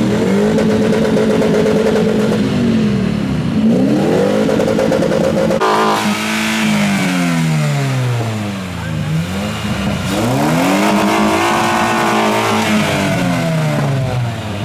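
Modified Honda Civic's VTEC four-cylinder engine, breathing through an open cone air filter, revved three times: each time the pitch climbs quickly, holds high for a second or two, then slides slowly back toward idle.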